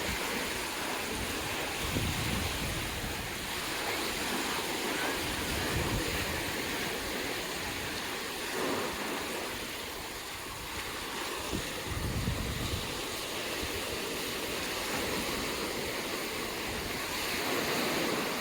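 Ocean surf washing steadily onto a sandy beach, with wind buffeting the microphone a few times.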